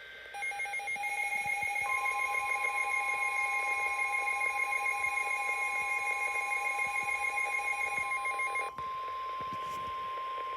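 NOAA weather radios sounding a severe thunderstorm warning alert: the radios' own rapid pulsed alarm beeping, and from about two seconds in, the steady single-pitch warning alarm tone of the weather broadcast. The beeping stops with a click shortly before the end, leaving the steady tone.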